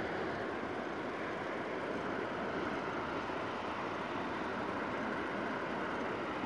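Steady rush of sea surf on the shore, mixed with wind noise on the microphone.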